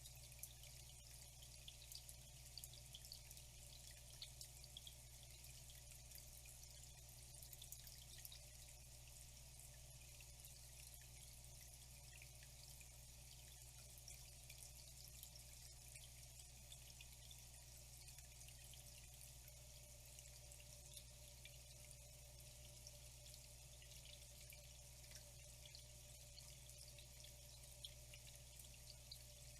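Faint water trickling and dripping, a steady soft splashing hiss full of small droplet ticks, with a steady low hum underneath.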